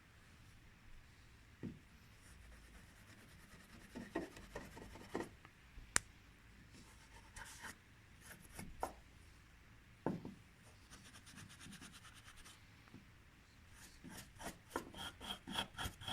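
Faint hand filing of a soldered joint on a metal candelabra arm: scattered rasping strokes, with a sharp click about 6 s in, then a quicker run of strokes, about four a second, near the end as the solder is taken down.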